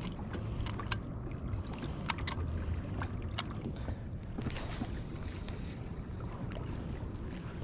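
Water lapping against the hull of a small fishing boat, over a steady low rumble, with scattered small sharp knocks and clicks. Two faint high chirps come early on and about two and a half seconds in.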